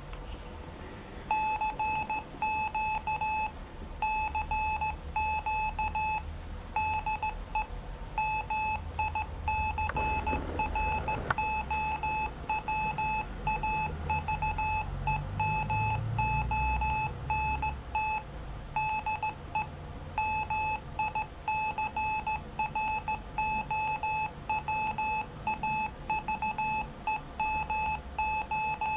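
Computer-generated Morse code at 15 words per minute: a steady mid-pitched beep keyed on and off in short and long elements, starting about a second in. A brief rustle is heard about ten seconds in.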